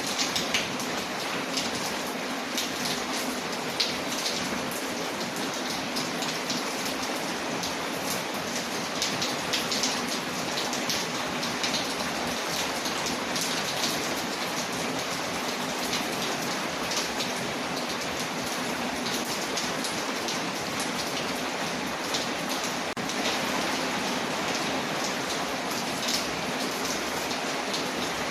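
Steady rain pattering on a window, a continuous even hiss, with scattered sharp crackles and ticks from a fireplace fire mixed in.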